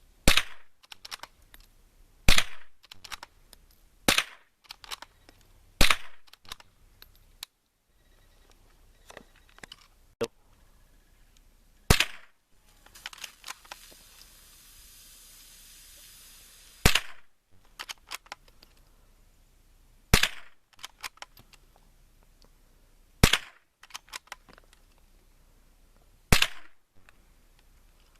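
About ten gunshots, the first four about two seconds apart and the rest more widely spaced, with small clicks and knocks between them. A steady hiss runs for a few seconds between the sixth and seventh shots.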